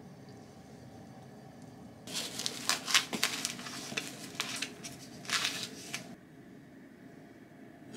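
Crisp rustling and crinkling of something being handled, starting about two seconds in and lasting about four seconds, loudest in two spells.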